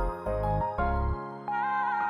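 Background music: an instrumental with repeated low bass notes under a simple melody.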